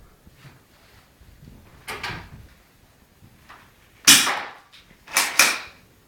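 Sharp clacks from an air-powered (airsoft) shotgun: a weaker one about two seconds in, a loud one about four seconds in, and a quick double clack just after five seconds, each dying away within half a second.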